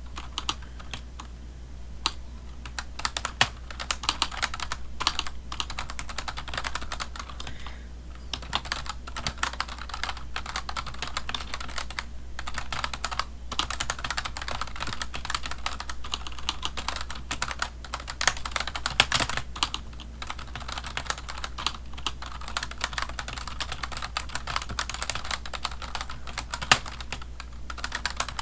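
Typing on a computer keyboard: fast runs of key clicks broken by short pauses, over a steady low hum.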